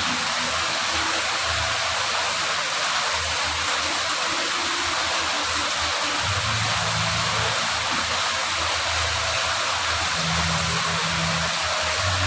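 Steady rain falling, an even hiss, with a low rumble coming and going underneath.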